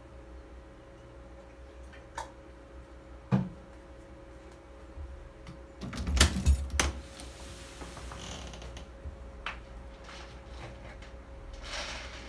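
Household handling knocks: a single knock a few seconds in and a cluster of louder knocks and rattles around the middle, over a faint steady hum. Near the end, dry cat kibble starts pouring and rattling into the aluminium bowl of a raised cat feeder.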